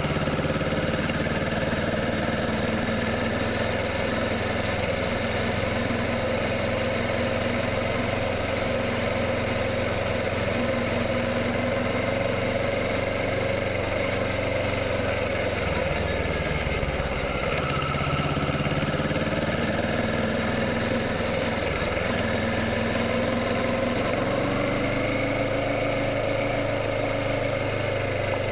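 2017 Kawasaki Ninja 650's parallel-twin engine running steadily, its pitch drifting gently up and down.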